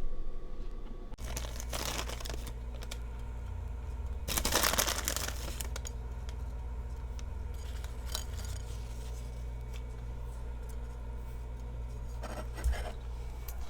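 A few bursts of rustling, like paper or plastic being handled, the longest about a second long, over a steady low hum that starts suddenly about a second in.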